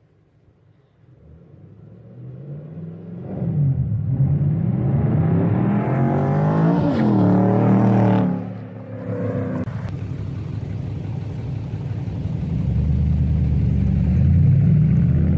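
2010 Ford Mustang GT's 4.6L V8 through a true dual exhaust with catalytic converters and no crossover pipe. It swells from near silence over the first few seconds, then the engine note rises and falls in pitch several times and drops off abruptly about eight seconds in. After that it runs more steadily and grows louder near the end.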